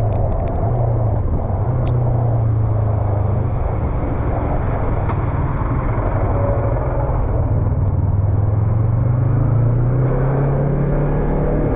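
Yamaha MT-03 motorcycle engine running under way, with road and wind noise around it. The engine note eases a little midway, then climbs steadily over the last few seconds as the bike accelerates.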